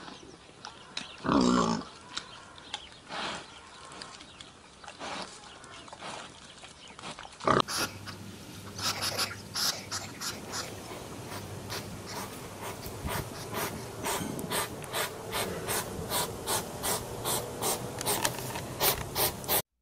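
A warthog grunts once about a second and a half in, with softer snuffles after. Then a hedgehog sniffs and snuffles in short puffs, about two a second, coming faster near the end.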